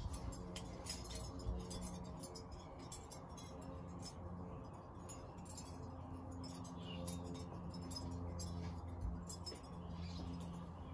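Wind chimes ringing faintly, with several held tones and light clinks.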